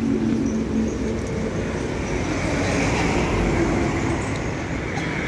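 Steady road traffic noise, with a motor vehicle's engine humming close by.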